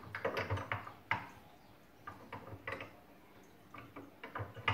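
Desk clamp of a monitor arm being fitted onto a desk edge, its parts clicking and knocking against each other and the desk as the clamp is slid into its last hook position: a quick run of clacks in the first second, then scattered lighter clicks.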